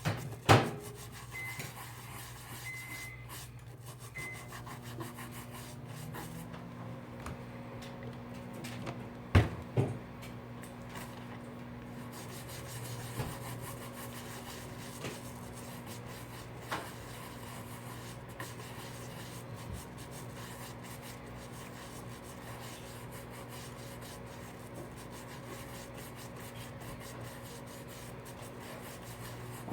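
Light rubbing of a brush scrubbing solvent into the adhesive on a phone's frame to dissolve the glue, with a few sharp knocks, the loudest near the start and about nine seconds in. A steady low hum runs underneath.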